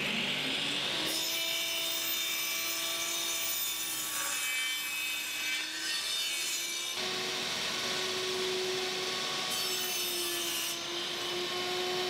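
Bosch PTS 10 table saw: the motor winds up with a rising whine in the first second, then the blade cuts plywood with a steady whine and cutting noise. The sound changes abruptly about seven seconds in, where a second cut begins.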